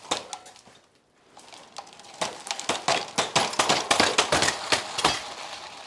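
Ice crust crunching and cracking underfoot: a dense run of sharp crackles starting about two seconds in and easing off near the end.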